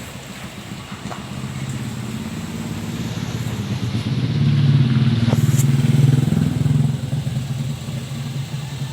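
Vehicle engine being revved with an aftermarket turbo whistle fitted to the exhaust. It builds to a louder rev about halfway through and eases back toward idle near the end. The whistle is not yet fully fitted: its air-hole cover is missing, which keeps the whistle sound small.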